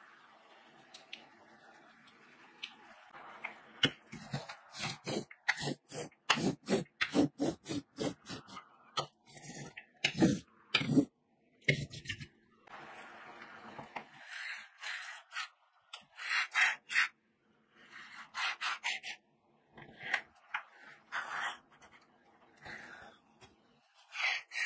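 A hand tool rubbed over the bumpy surface of a finished diamond painting, scraping across rows of small resin drills. The first half is a run of quick back-and-forth strokes, about two a second. After that the strokes are softer and more spaced out.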